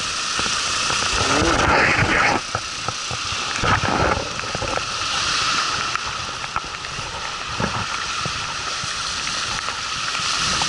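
Strong wind buffeting the microphone over waves breaking on the shore, with louder gusts about two and four seconds in.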